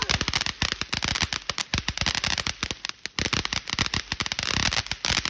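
Consumer firework going off in a rapid, crackling string of sharp bangs, many a second without a break.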